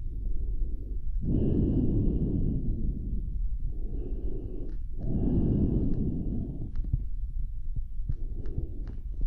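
Slow, heavy breaths performed close to the microphone as a dinosaur's breathing: about four long in-and-out breaths, each lasting one to two seconds. The longer breaths carry a faint wheezy whistle. A few wet mouth clicks fall in the second half.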